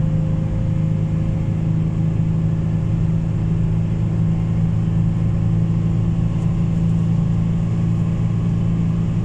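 Car cruising at steady highway speed, heard from inside the cabin: a constant engine hum and tyre roar.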